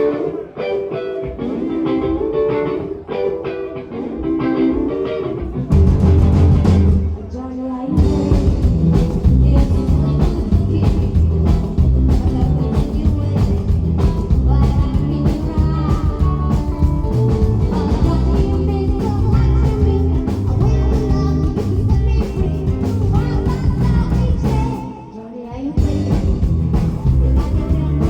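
Rockabilly band playing live. A guitar plays alone at first; bass and drums come in about six seconds in, pause briefly, then the full band carries on, with a short stop near the end before it picks up again.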